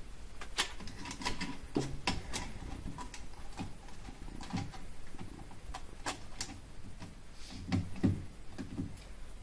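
Scattered clicks, taps and light rustles of hands handling a small plastic projection night-light while its picture sheet is swapped and pushed into place.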